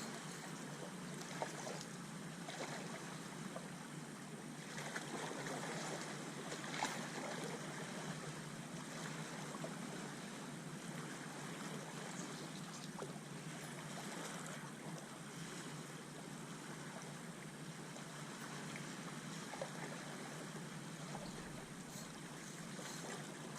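Steady sea-side water sound: water lapping and sloshing with an even hiss, broken by a few faint small knocks.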